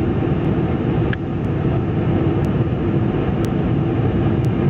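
Steady roar of a Boeing 747's jet engines and rushing air heard inside the passenger cabin on final approach.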